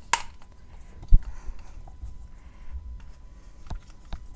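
Handling noises of a paste syringe and paste being worked by hand: scattered small clicks and taps, with a dull thump about a second in and two sharper taps near the end.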